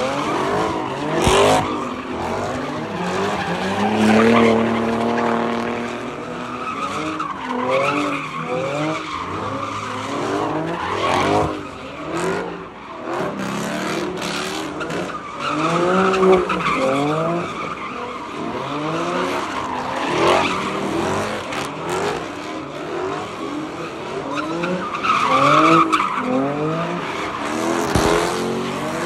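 Cars doing donuts: tyres squealing and skidding on the pavement throughout, while the engines rev up and fall back again and again under bursts of throttle.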